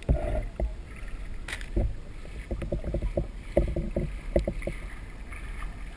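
Water gurgling and bubbling around a submerged camera, with a low rumble, short popping bubble blips and a few sharp clicks.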